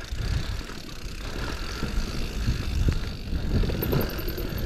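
Electric full-suspension mountain bike rolling down a dirt singletrack: a steady low rumble of tyres on dirt and leaves, with irregular small knocks and rattles from the bike over bumps.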